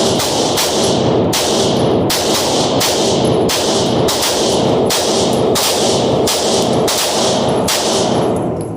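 Glock 19 9mm pistol fired semi-rapidly, about two shots a second, through a string of around sixteen rounds, each shot ringing on into the next; the firing stops near the end.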